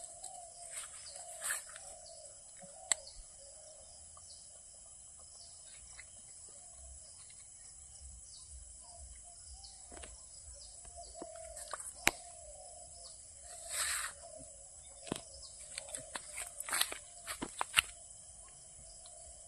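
Outdoor ambience: a steady high-pitched hum under scattered bird chirps, with short clicks and brief rustling bursts now and then.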